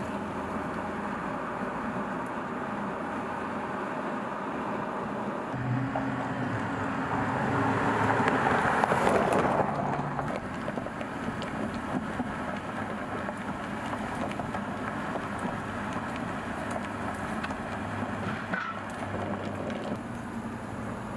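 Supercharged 6.2-litre V8 of a Dodge Charger SRT Hellcat Redeye running with a deep rumble. It swells much louder about eight seconds in and falls back about two seconds later.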